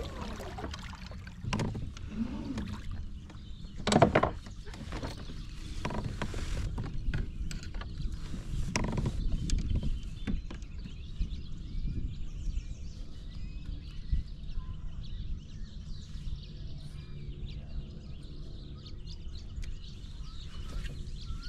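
Water sloshing and lapping along the hull of a moving fishing kayak, with a sharp knock about four seconds in and another near nine seconds.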